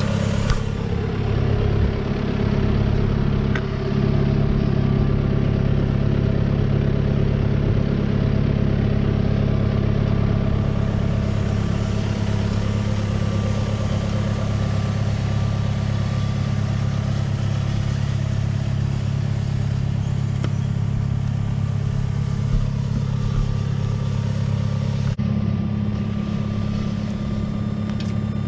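Tractor diesel engine running steadily at constant speed, heard close up while it pulls a plastic mulch layer.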